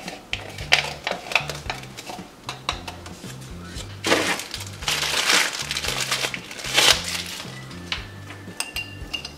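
Background music with a stepping bass line, over clinks of a glass mason jar and its lid handled while mixing a drink, with two louder rustles about four and seven seconds in.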